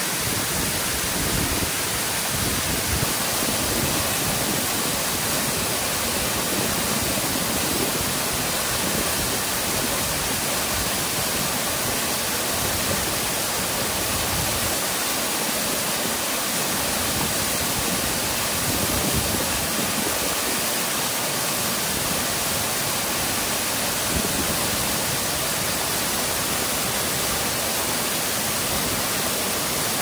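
Rushing water of a river at a waterfall, a steady, unbroken rush.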